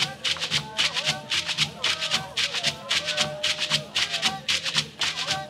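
Live West African percussion music with chanting: a steady rattling beat at about five strokes a second, played on large calabash gourd instruments, with voices chanting held notes over it.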